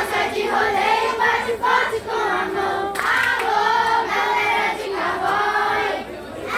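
A crowd of voices singing together with no accompaniment, carrying on the song after the music has cut out.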